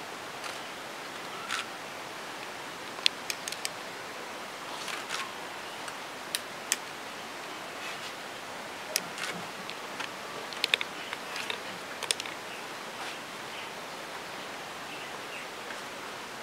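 Steady hiss of room tone, with scattered small sharp clicks and soft rustles, the loudest about three seconds in and again around nine to twelve seconds in.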